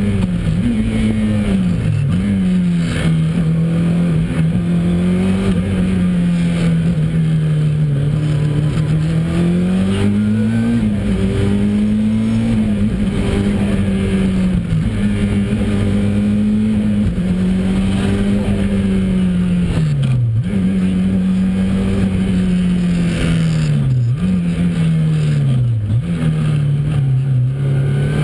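Ford RS200 Evo's turbocharged four-cylinder engine driven hard, heard from inside the cabin: the revs climb and drop again and again through quick gearshifts and lifts for corners. It is loud, over a steady rush of road noise.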